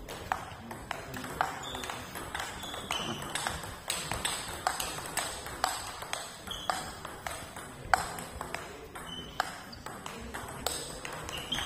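Table tennis rally: the celluloid ball clicking off the bats and bouncing on the table, about two sharp clicks a second in an even back-and-forth rhythm.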